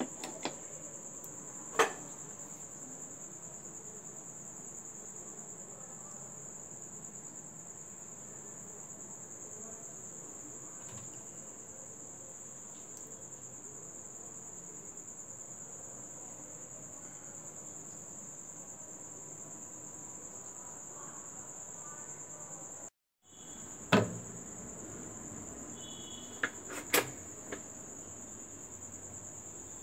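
Crickets trilling steadily in a high, even pitch, with a few sharp clicks and knocks, the loudest about two seconds in and one near the end. The sound cuts out completely for a moment about three quarters of the way through.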